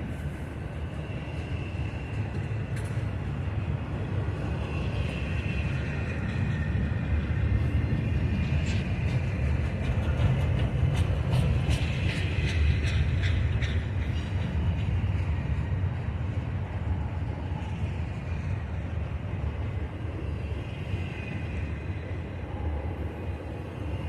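Intermodal freight train cars rolling past: a steady rumble of steel wheels on rail, with a high wavering squeal that comes and goes and a run of sharp clicks between about 8 and 14 seconds in.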